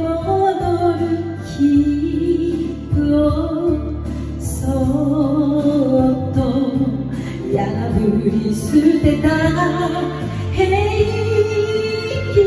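A woman singing an enka ballad into a handheld microphone over a karaoke backing track, holding long wavering notes.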